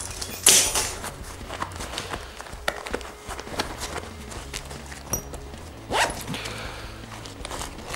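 Hands rummaging in a fabric camouflage waist pack: fabric rustling and small items clicking and knocking together, with louder rustles about half a second in and again around six seconds.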